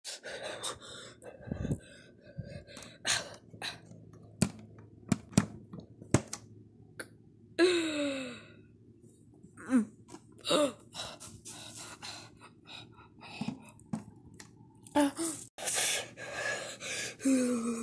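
Scattered knocks and clicks, with a person's short wordless gasps and groans that fall in pitch, about eight and ten seconds in and again near the end.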